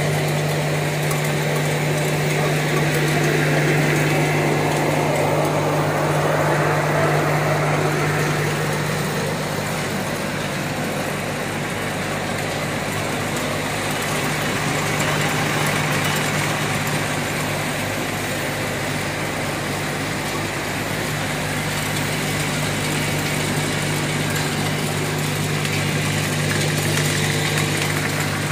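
Karnavati Unik I rotary tablet compression machine running steadily: a constant motor hum with an even mechanical whirr and rattle over it.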